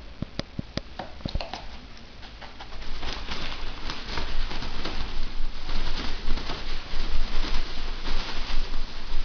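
A few sharp clicks in the first second or two, then from about three seconds in, toilet paper rustling and flapping rapidly and loudly as the roll is whipped and unwound at speed.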